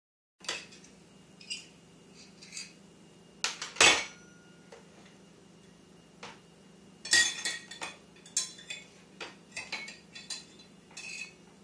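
Stainless steel measuring cups and a spoon clinking and clattering against each other and a plastic tray in a toddler's hands: irregular clinks, some ringing briefly, loudest about four seconds in and again around seven to eight seconds in.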